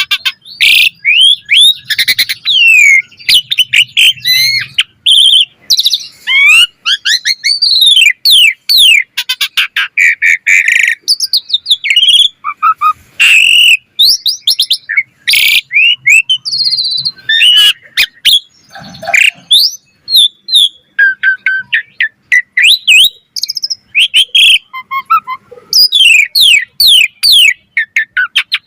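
Asian pied starling (jalak suren) singing hard in full song: a fast, unbroken stream of varied whistles, rising and falling glides, harsh buzzy notes and clicks, packed with varied fill-in phrases.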